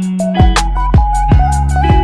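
Background music with a steady beat: sustained pitched notes over a low bass and regular drum hits about two to three times a second.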